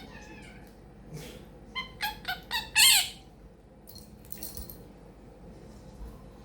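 Quaker parrot giving a quick run of about five short chirps and squawks, the last one loudest with a falling pitch, followed by a faint raspy chatter.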